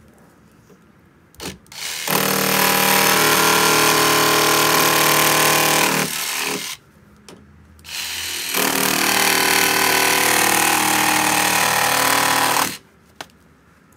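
Cordless jigsaw cutting through a Komaalu aluminium composite sheet, running in two cuts of about four seconds each with a short pause between them.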